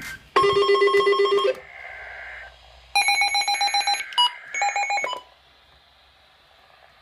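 Weather radio receivers sounding an Emergency Alert System alert for a winter storm warning: the buzzy two-tone data bursts of the alert header, overlaid by two loud trilling electronic alarm bursts, about half a second in and about three seconds in. The sound drops to a faint hiss a little past the five-second mark.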